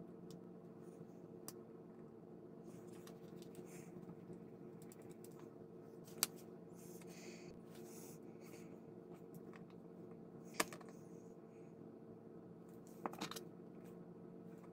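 Sparse light clicks and taps of tweezers, tools and small plastic model parts handled on a cutting mat, with a few sharper clicks about 6 s and 10 s in and a pair near the end, over a steady low hum.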